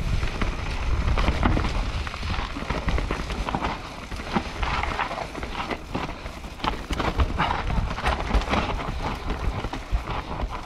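Mountain bike rolling fast over loose dirt and stones: tyres crunching, with many small clicks and knocks from the bike rattling. Wind buffets the helmet-mounted camera's microphone as a low rumble throughout.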